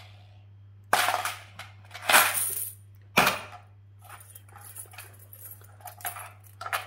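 Metal coins clattering against a plastic bowl and a pile of coins. There are three loud rattles in the first few seconds, then lighter scattered clinks.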